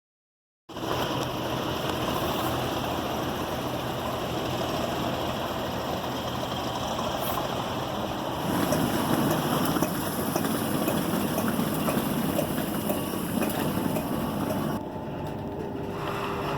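Steady rumble and hiss of a passenger train. It starts abruptly about a second in, and its character changes suddenly twice.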